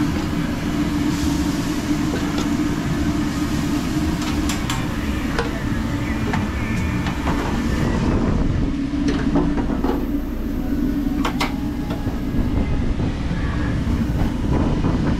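Inside a working food truck kitchen: a steady machine drone with a low hum, broken by scattered clicks and clatter of cooking work.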